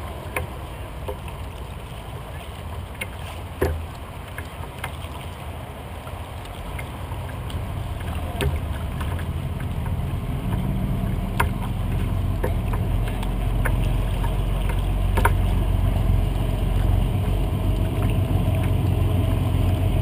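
Water lapping against a kayak's hull on choppy water, with wind on the microphone and a few sharp knocks. A low rumble builds steadily louder from about halfway through.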